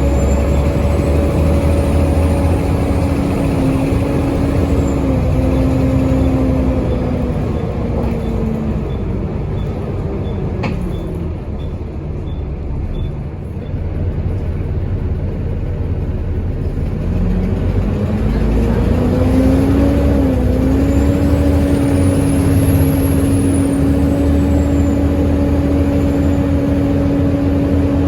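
Volvo B7TL bus with a ZF automatic gearbox, its D7 engine and turbo heard on board with a constant whining 'hoover' drone. The whine drops in pitch as the bus eases off and slows, then climbs again as it pulls away. A high turbo whistle rises and falls near the end, and faint regular ticking runs through the middle.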